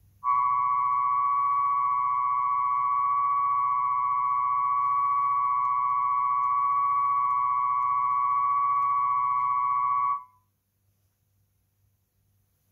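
Test-record tonearm-resonance track played by an Audio-Technica AT-3600L cartridge on a Dual 721 turntable: steady test tones at 1000 and 1125 Hz, carrying a 15 Hz low-frequency component, for checking where the arm-cartridge resonance lies. The tone holds for about ten seconds, then cuts off abruptly.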